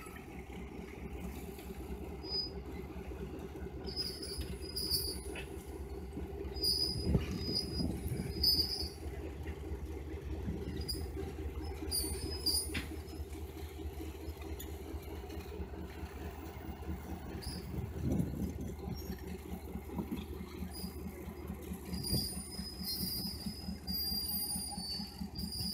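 Southern Railway No. 6133, an EMD F-unit diesel locomotive, running steadily as it slowly hauls a passenger car along the track. Its wheels make a few knocks and short high-pitched squeaks on the rails.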